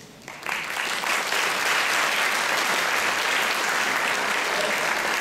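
Audience applauding, starting just after the beginning and holding steady.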